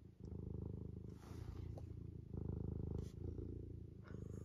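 Domestic cat purring close to the microphone, a steady low rattle that swells and eases in level.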